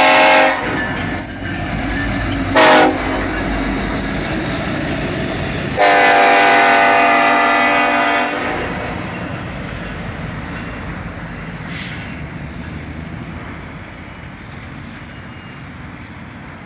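Norfolk Southern SD70ACe locomotive's air horn sounding for a grade crossing: a long blast ends about half a second in, a short blast comes about two and a half seconds in, and a long blast runs from about six to eight seconds, all over the rolling clickety-clack of the passing inspection train. The rolling noise slowly fades as the train moves away.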